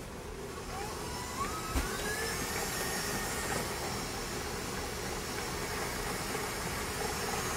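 Electric stand mixer switched on: its motor whine rises in pitch over about a second as it comes up to speed, then runs steadily as it beats butter with herbs for a compound butter. A short knock comes just after it starts.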